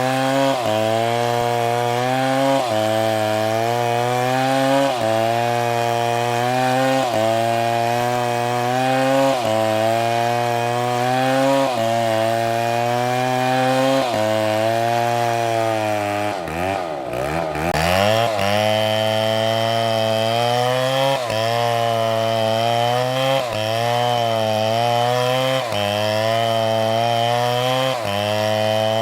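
Chainsaw engine running under load, cutting through wood. Its pitch sags every couple of seconds as the chain bites. About two-thirds of the way through it bogs down deeply, then revs back up.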